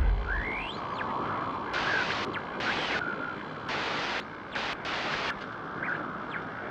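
Intro logo sound effect: a fading rumble with hiss, broken by several short bursts of static-like glitch noise and a few faint whistling pitch glides.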